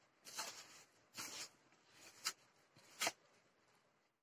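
A hand tossing cornflour-coated paneer cubes in a plastic bowl: soft scraping and rustling in four short bursts.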